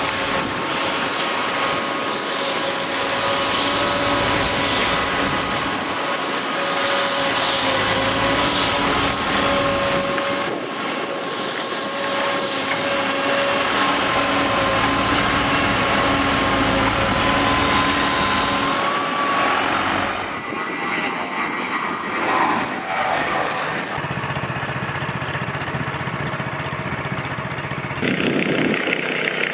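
Heavy machinery running, a steady mechanical noise with a high whine held over it; the sound changes abruptly about two-thirds of the way through and again near the end.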